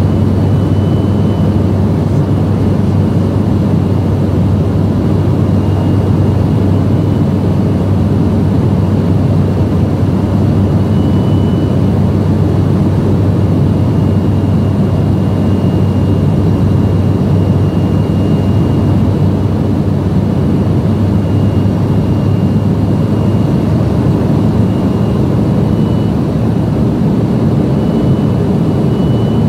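Steady engine and airflow noise heard inside the cabin of an airplane in flight: a loud, even low hum with a faint high whine running under it.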